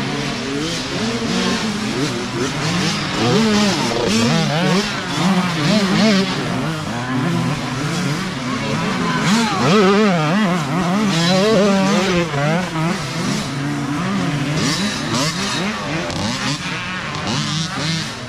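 Several small youth dirt bikes revving along a dirt trail, their engine notes climbing and falling as the riders work the throttle and shift. The sound grows loudest about halfway through as riders pass close.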